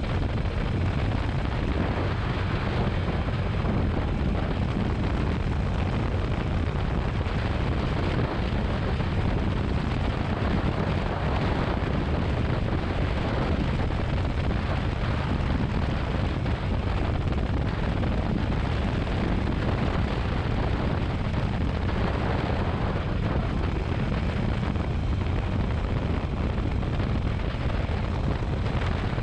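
Motorcycle riding at steady speed: wind rushing over the microphone mixed with the bike's engine and road rumble, an even steady noise.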